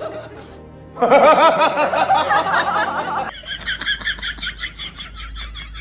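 A person laughing in quick, rapid pulses for a couple of seconds. It cuts off suddenly, and a quieter run of quick, high-pitched chirps follows, about five a second.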